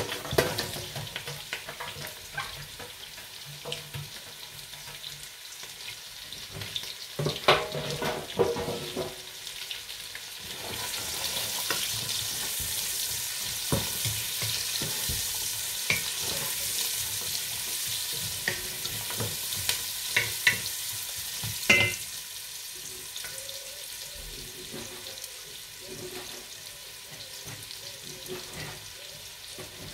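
Sliced carrots and chouriço frying in a large stainless stockpot: a steady sizzle that grows louder and brighter for about ten seconds in the middle. Scattered knocks and scrapes of a wooden spoon and metal tray against the pot.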